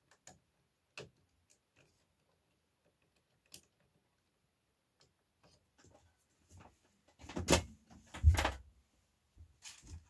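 Scattered light clicks and knocks of plastic parts being handled inside an opened wall-mounted air conditioner unit, with a louder clatter of knocks about seven and a half seconds in.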